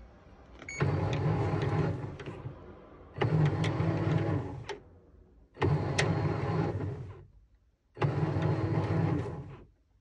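Sharp ES-GV8D top-loading washing machine's motor turning the dry drum in four short bursts of about two seconds each. Each burst is a low hum under a whooshing rush. A click comes just before the first burst.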